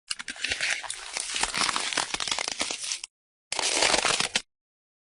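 Crackly crinkling noise in two bursts, the first about three seconds long, the second about one second long, with a clean cut to silence after each.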